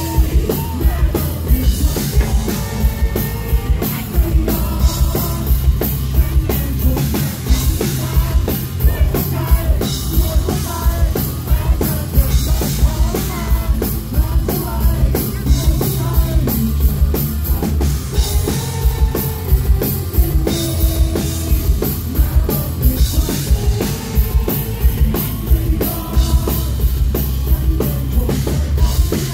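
Live rock band playing loud: a drum kit keeping a steady, driving beat under electric guitars.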